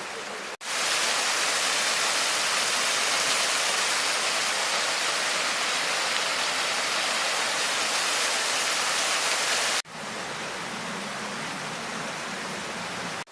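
Steady rush of a mountain waterfall and stream. It breaks off for an instant just after the start and comes back louder, then breaks again about ten seconds in and comes back quieter.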